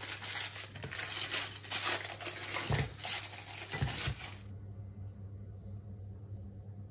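Crinkling and tearing of a chocolate bar's wrapper as it is unwrapped, with a couple of soft knocks, stopping abruptly about four and a half seconds in; a low steady hum remains.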